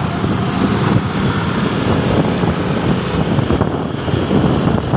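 Motorcycle running along in slow traffic, its engine rumbling steadily, with wind buffeting the microphone.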